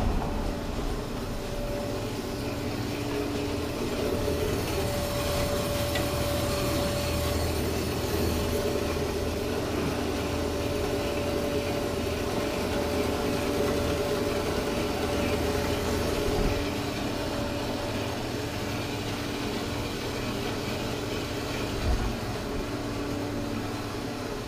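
Metal-cutting band saw running steadily, a constant hum with a steady whine, as it cuts 2-inch square steel tubing. A couple of light knocks come through in the second half.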